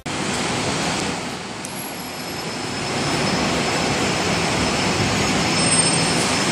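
Steady noise of a covered bus terminus, with double-decker bus engines running; it grows a little louder about three seconds in.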